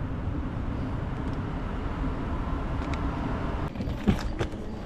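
Escalator running: a steady low rumble with a faint hum from the moving steps, which eases near the end, and a single sharp knock just after.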